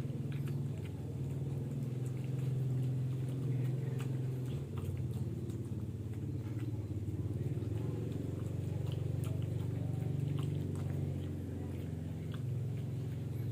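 A dog and a cat chewing their food: many small irregular clicks and crunches over a steady low hum.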